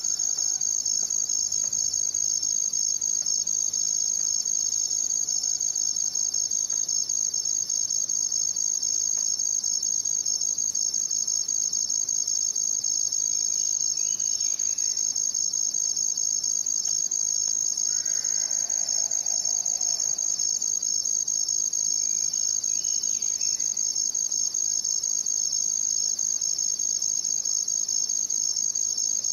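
A chorus of night crickets chirping in an unbroken, high-pitched steady trill, with a few faint, brief sounds from something else about halfway through.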